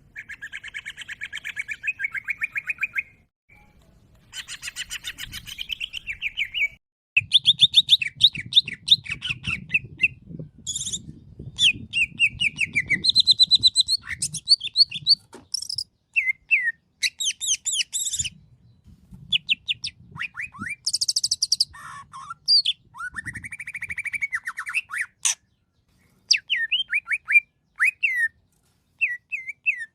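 Green leafbird (cucak ijo) singing continuously: a rapid, varied run of chattering trills, whistled notes and quick rising and falling sweeps, broken by a few short pauses.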